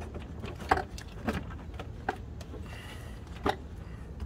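Plastic engine cover of a Honda 3.5L V6 being pried up off its mounting pins: four sharp plastic clicks and knocks spread over a few seconds, the first the loudest.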